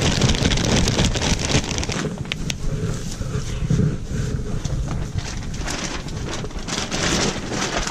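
Plastic sack of peat crackling as the peat is tipped out onto a straw bed, then gloved hands spreading and rubbing the loose peat over the straw. A dense crackling rustle, loudest in the first two seconds.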